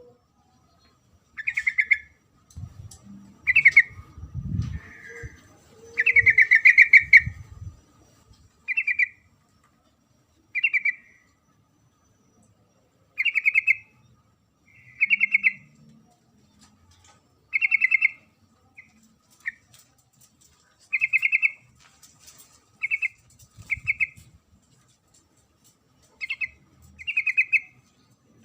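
Female yellow-vented bulbul (trucukan) calling: short, rapidly pulsed chattering chirps, one every second or two, of the kind played to draw in males. There are a few low thumps in the first several seconds.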